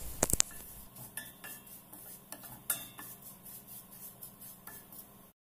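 A spatula stirring vermicelli as it toasts in oil in a stainless steel pot: scattered light knocks and scrapes against the pan, with a ringing clink just after the start. The sound cuts out briefly near the end.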